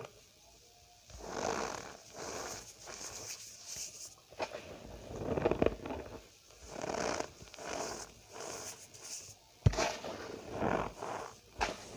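Cornstarch powder squeezed and crushed by hand: a run of squeaky, crunchy squeezes, roughly one a second, with a sharp click about ten seconds in.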